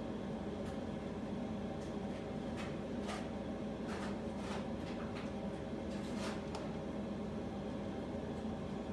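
A steady mechanical hum, like an appliance fan, with scattered light clicks and taps in the middle as meat is threaded onto wooden barbecue skewers over a bowl.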